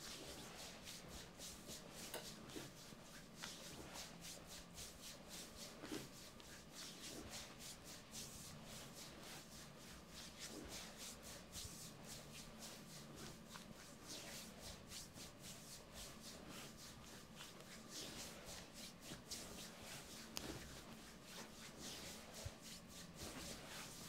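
Hands massaging a bare thigh, skin rubbing and sliding over skin in many short, faint strokes.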